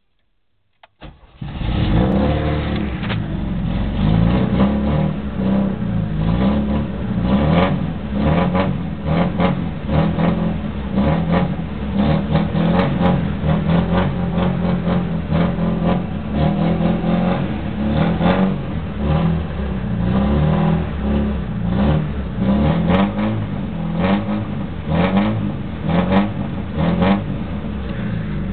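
Fiat 125 Mirafiori's four-cylinder engine running with no exhaust system, only a chrome tailpipe tip, revved up and down over and over. It comes in about a second in and stays loud.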